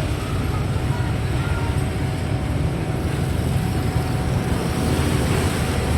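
Steady low rumble of a heavy vehicle's engine running.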